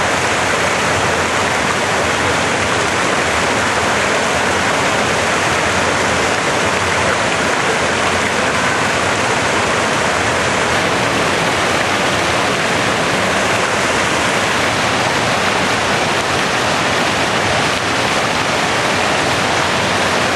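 Fountain water splashing in a steady, even rush.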